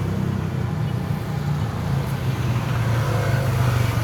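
Road and traffic noise heard from a moving e-bike: a steady low rumble with a haze of wind and tyre noise.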